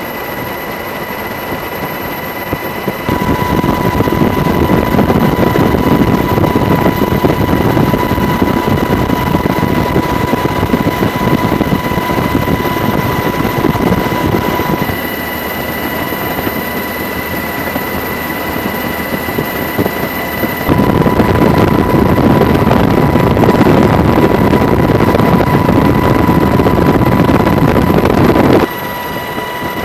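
Steady engine and rotor noise of the helicopter carrying the camera: a dense rushing noise with constant high whine tones on top. It gets abruptly louder about three seconds in, drops about halfway, rises again about two-thirds in, and drops near the end.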